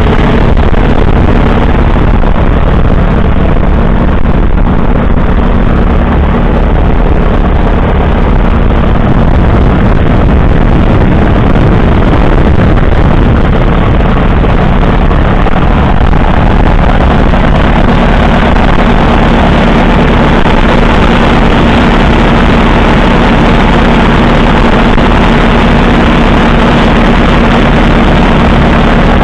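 Case LA crawler tractor's 6.6-litre four-cylinder engine running steadily, heard close up.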